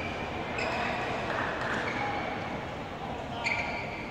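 Court shoes squeaking on a badminton court mat in a large echoing hall, with a low murmur of voices. A short sharp hit comes about three and a half seconds in as play resumes.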